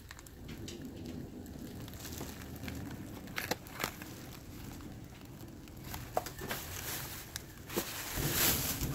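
Thin plastic grocery bags rustling and crinkling as they are handled and groceries are pulled out of them. Several sharp crackles come through the middle, and there is a louder rustle near the end.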